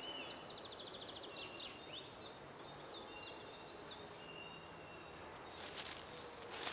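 Woodland birds singing: a quick trill in the first second or so, then scattered short chirps and sweeping whistled notes. From about five and a half seconds in, footsteps crackle on the dry forest floor as someone walks closer.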